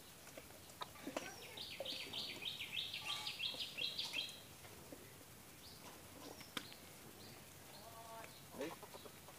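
A bird calling: a quick run of about a dozen short, high chirps, roughly five a second, starting about a second and a half in and lasting nearly three seconds. Faint scattered clicks follow.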